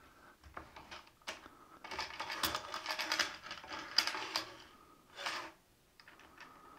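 Katz-Moses non-deflection stop block being fitted into the T-track of a miter gauge's sacrificial fence: a run of small metallic clicks and rattles, busiest in the middle of the stretch.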